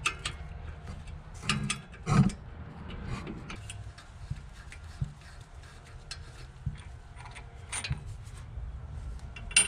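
Ratchet wrench clicking in irregular runs as the 10 mm brake caliper bolts are backed out, with a few sharper metal knocks and clinks of tools.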